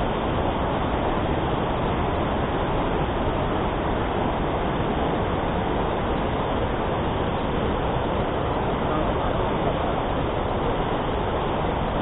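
Steady rushing of a waterfall, an even noise that holds at the same level throughout.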